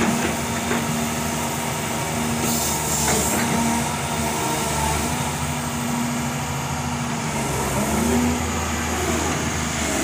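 Doosan DX220 excavator's diesel engine running steadily under hydraulic load while the boom, arm and bucket are worked and the upper body swings. A short hiss comes about two and a half seconds in.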